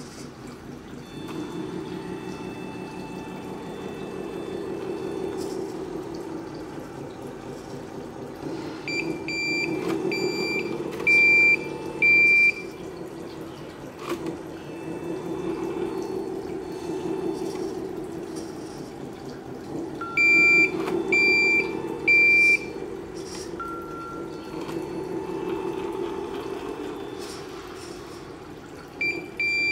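Tamiya 1/14 Mercedes-Benz Actros 1851 RC truck's sound unit playing a diesel truck engine through its small speaker, the engine swelling and easing again and again as it is throttled. Two runs of loud reversing beeps, about ten and twenty seconds in, with more right at the end.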